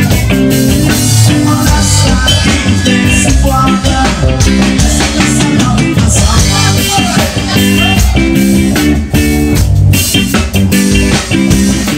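Live band playing amplified rock music: electric guitars and bass over a drum kit, with a steady beat.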